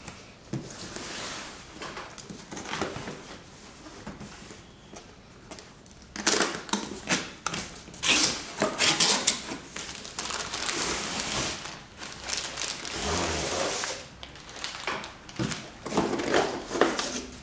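Cardboard packaging being opened and handled, with the contents sliding out of the box and plastic wrapping rustling. It is a run of scraping and rustling with short clicks and knocks, louder from about six seconds in.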